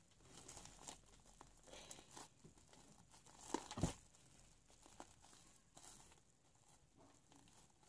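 Sticky homemade glue slime being kneaded and pulled apart by hand: faint, scattered small sticky pops and squishes, with a couple of louder ones near the middle.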